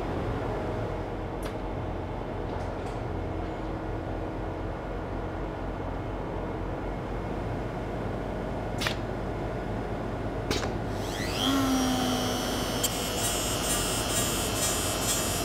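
Gear deburring machine and robot arm at work: a steady machine hum with a few sharp clicks. About two-thirds through, a motor winds up with rising whines and settles into a high steady whine as the cutter runs at the gear.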